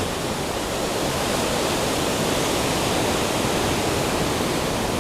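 Steady rush of ocean surf along the coast, an even wash of noise with no single breaking wave standing out.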